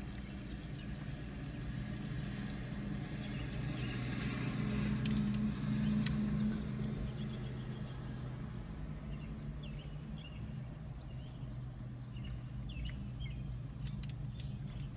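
A motor vehicle passing outside the car's open window, its low hum swelling to a peak about midway and then fading, over a steady low rumble. A few short bird chirps come near the end.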